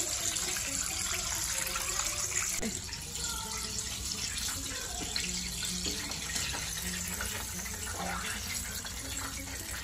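Hot oil deep-frying battered chicken, sizzling and bubbling steadily.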